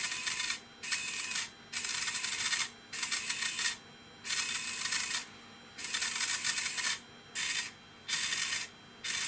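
Small AC servo motor and reduction gear train of a Sperry aircraft gyro amplifier base, whirring in about eight short bursts that start and stop. Each burst is the servo loop driving its synchros to follow the external synchro transmitter as it is turned by hand, and the loop tracks quickly and settles.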